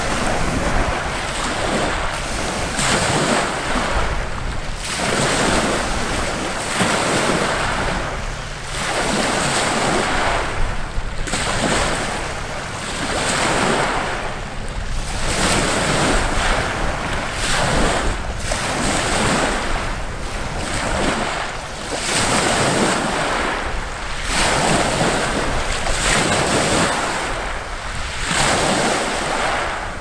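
Small wind-driven waves on a loch breaking and washing up over a pebble beach, swelling and ebbing about every two seconds. Wind buffets the microphone underneath.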